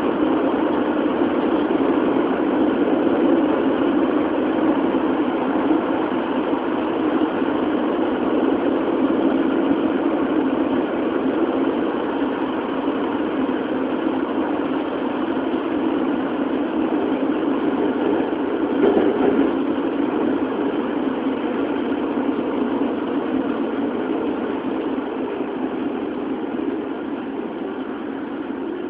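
Toei Shinjuku Line 10-000 series (8th batch) subway car running through a tunnel, heard from inside the car: a steady rumble of wheels on rail and running gear, easing slightly in loudness over the last few seconds.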